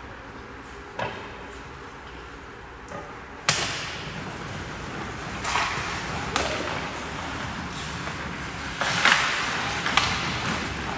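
Ice hockey play: a sharp crack of stick and puck about a third of the way in, then the steady scrape of skate blades on the ice with several more sharp stick-and-puck cracks.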